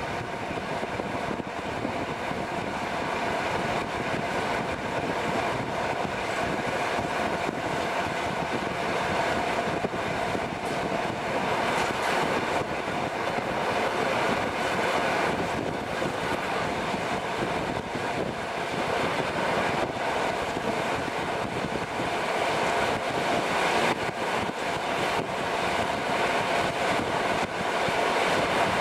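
Passenger train running at speed, heard from an open carriage window: a steady rush of wheel-on-rail rumble and wind, with a steady whine beneath it.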